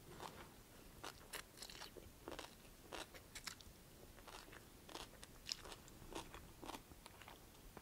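Faint, close chewing of a crunchy kohlrabi-noodle stir-fry with carrots and bean sprouts: soft irregular crunches and mouth clicks, a few every second.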